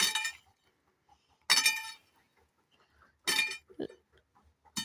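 A metal digging tool striking stones in the sand with a ringing clink, three strikes about a second and a half apart, and a fainter knock near the end.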